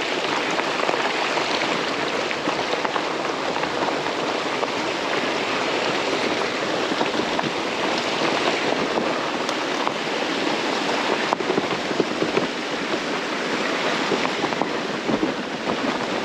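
Fat-tire electric bike rolling fast downhill on a rough dirt and gravel trail. Its 4-inch tyres make a steady rushing noise on the ground, with a few sharp knocks over bumps in the second half.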